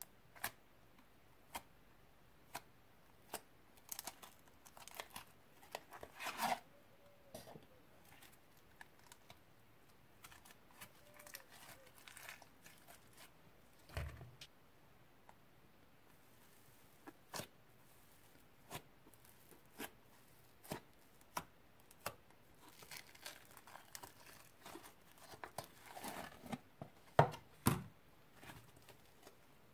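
Old slime being mixed by hand, stretched, folded and pressed, giving sharp sticky clicks and pops at irregular intervals. There are two longer crackly, tearing stretches, one a few seconds in and one near the end.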